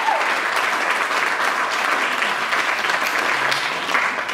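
Audience applauding, steady dense clapping throughout.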